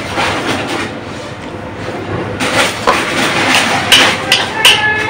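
A scatter of sharp knocks and clatters over a steady rushing background noise, with a short ringing clink about four and a half seconds in.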